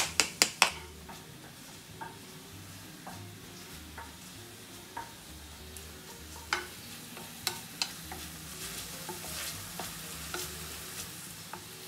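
Sliced onions and green chillies frying in a little oil in a stainless steel pan: a light sizzle with the occasional knock of a wooden spoon stirring them against the pan. In the first second, a few sharp taps of a knife scraping the onions off a plastic cutting board into the pan.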